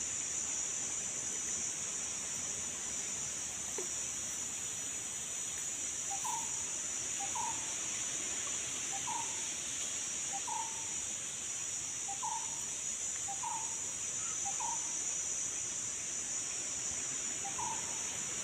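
A steady, high-pitched drone of insects, crickets or cicadas, with a bird repeating a short call about eight times, every second or so, starting about a third of the way in.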